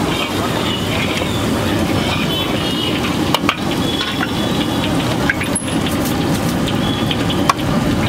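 Gas wok burner running at full flame under a wok of heating oil, a steady low rush, with a few sharp metal clinks about three, five and seven seconds in.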